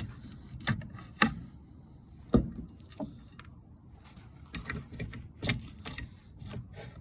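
Scattered knocks and clicks of pallet boards and hand tools being handled, with light metallic jingling ticks. The loudest knocks come about a second in and near two and a half seconds in.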